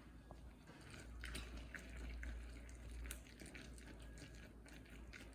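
Faint spoon scraping and clicking in a bowl, stirring baking soda into hot, sticky peanut brittle syrup, with small wet, sticky sounds between the irregular clicks.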